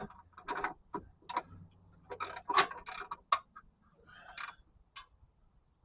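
Irregular metallic clicks and clinks of a hand ratchet wrench and socket working on a truck's transmission crossmember bolts to break them loose.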